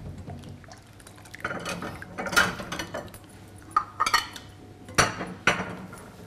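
A spoon stirring syrup in a coated metal pot: scraping against the pot, then several sharp clinks against its side in the second half.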